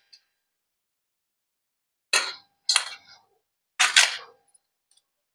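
Three short scrapes of a steel spoon against a steel plate as cooked rice is scraped off it, about two, three and four seconds in, after two seconds of silence.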